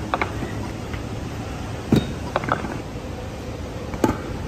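Freestyle stunt scooter clattering on stone paving: sharp knocks and clinks of the wheels and deck hitting the ground, loudest about two seconds in and again near the end as the rider lands off the steps.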